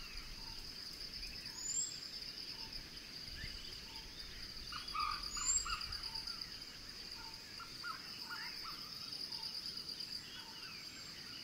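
Forest birds calling against an insect's steady high-pitched trill. A few short rising whistles come at intervals, and a run of short call notes comes around the middle.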